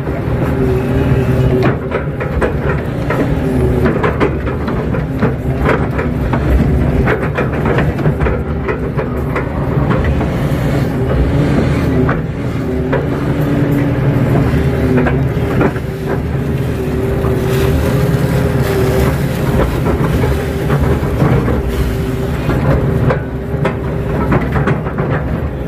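KATO crawler excavator's diesel engine running steadily under working load, heard from inside the cab, with a higher tone that comes and goes and frequent knocks and rattles as the bucket drags and smooths wet soil along a pond bank.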